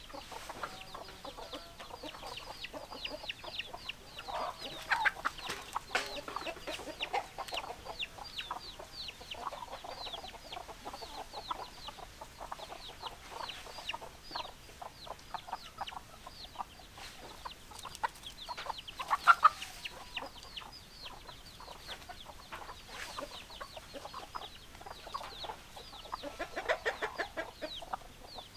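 Chickens clucking, over a constant stream of quick, high chirps. There are louder calls about five seconds in, around nineteen seconds and near the end.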